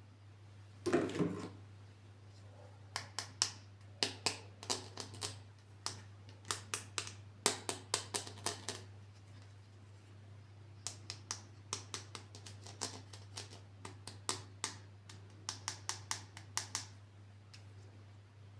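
Sharp clicks and taps of hard plastic toy parts being handled, coming in two quick runs of a dozen or so clicks each, after a short rustle about a second in. A steady low hum sits underneath.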